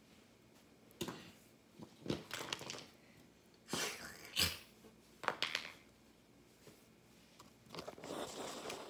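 Hard plastic toy animal figures knocking and scraping on a concrete floor as they are moved: several light, separate clicks spread through, with a soft rustle near the end.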